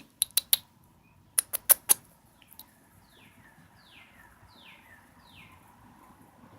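A kitten mewing four times, faint, short, high-pitched mews that fall in pitch. Before them come two quick runs of three sharp clicks, the loudest sounds here.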